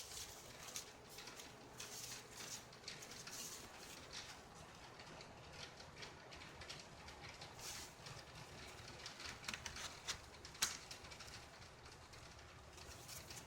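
Faint, scattered small clicks and rustles from small hardware being handled, with one sharper click about ten and a half seconds in.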